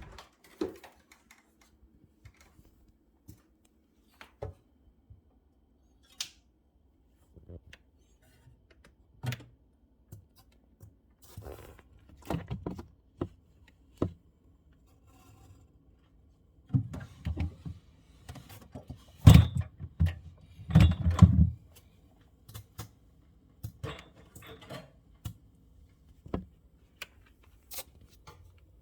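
Samsung Bespoke refrigerator making irregular clicks and knocks over a faint steady hum, with a run of louder thuds about two-thirds of the way through.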